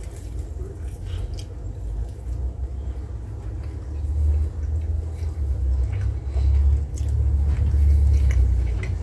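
A man biting into and chewing a grilled chicken drumstick, with faint scattered mouth clicks, under a steady low rumble that grows louder from about four seconds in.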